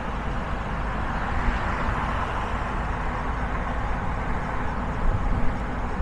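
A car driving on a city street: steady road and tyre noise over a low engine rumble, the hiss swelling slightly about two seconds in, with a couple of light knocks about five seconds in.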